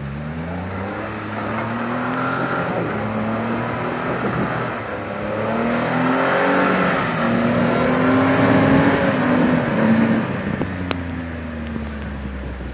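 Jeep Wrangler JK's engine revving, rising sharply at the start, then climbing and falling in pitch several times. It is loudest a little past the middle and eases off near the end.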